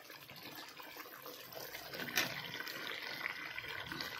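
Meat being fried with spices in a kadai, sizzling faintly, with a sharp knock about two seconds in as pieces of young jackfruit and potato go into the pan; the sizzle is a little louder after it.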